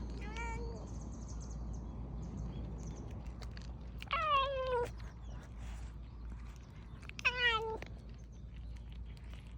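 A ginger tabby cat meowing three times: a faint meow right at the start, then two louder ones about four and seven seconds in, each dropping in pitch at the end.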